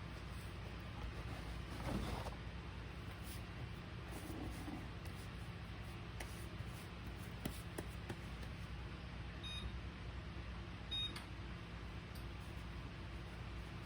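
Two short electronic beeps, about a second and a half apart, from an oven's control panel being set to preheat. A few light knocks sound over faint room hum.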